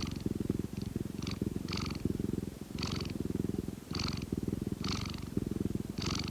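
Domestic cat purring steadily, the fast low purr running in stretches of about a second as it breathes in and out, with a faint higher rasp on each breath.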